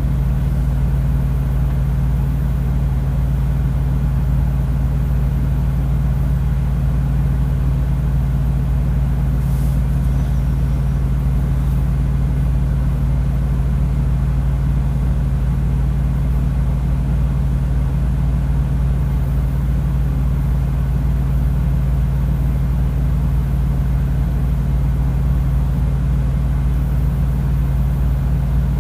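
Semi truck's diesel engine idling: a steady low drone that holds even throughout.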